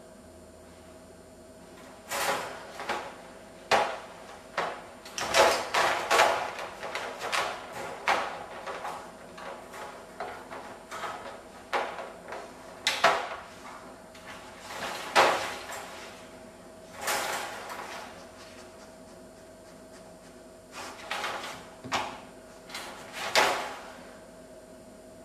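Wire dog crate rattling and clinking in irregular bursts as a puppy noses at its bars.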